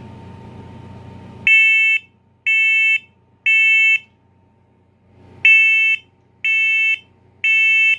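First Alert PC1210V smoke and carbon monoxide alarm's horn sounding in test mode: loud, high-pitched beeps in two groups of three, about half a second each and a second apart, with a short pause between the groups. This is the temporal-three smoke evacuation pattern, starting about one and a half seconds in.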